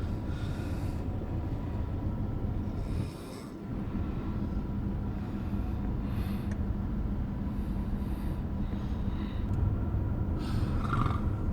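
Snoring: a steady low rumble with breathy gusts every two to three seconds, dropping away briefly about three seconds in.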